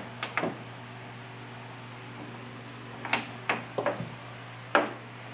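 A few short, sharp clicks and knocks over a steady low hum: two near the start, a quick run of four about three seconds in, then one more near the end.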